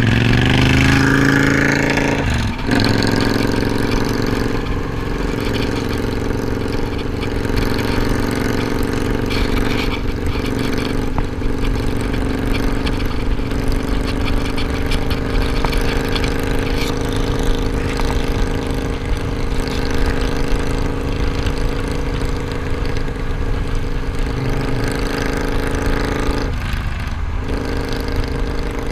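Twin-cylinder cruiser motorcycle engine heard from the rider's seat. The revs climb at the start, break briefly for a gear change about two and a half seconds in, then settle into steady cruising with wind rushing over the microphone. The throttle eases off briefly near the end.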